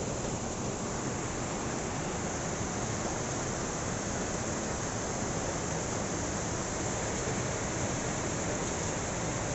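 Heavy rain and gusting wind in a steady, unbroken rush.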